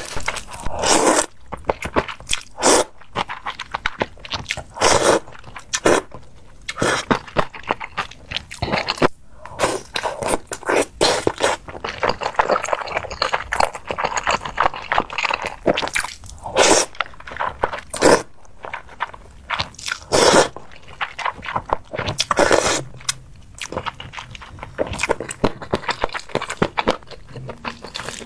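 Close-miked eating: a person biting and chewing crunchy food, with irregular crunches coming every second or so and some denser stretches.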